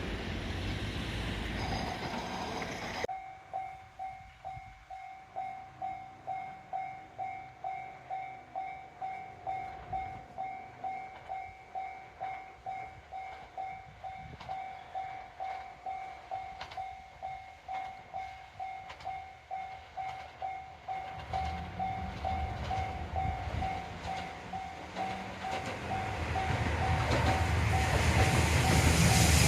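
Level crossing's electronic warning bell starts suddenly about three seconds in and dings steadily, about twice a second. In the last several seconds the low rumble of an approaching diesel train grows steadily louder beneath it.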